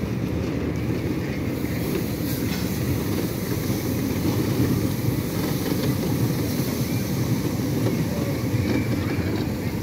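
Kiddie ride train running past on its track: a steady low rumble that grows a little louder as it goes by.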